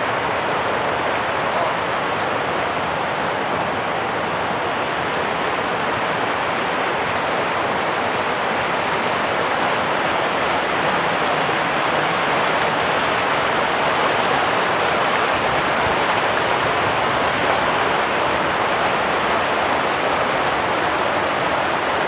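Rapids rushing steadily over rocks at a small waterfall.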